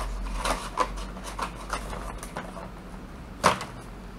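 Cardboard packaging and the plastic toy car transporter being handled and worked loose: rustling, scraping and small clicks, with one sharp plastic click about three and a half seconds in. A steady low hum runs underneath.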